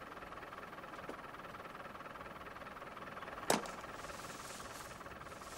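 A dart rifle fires once, a single sharp crack about three and a half seconds in, darting a lioness to sedate her. Under it a steady, low background hiss.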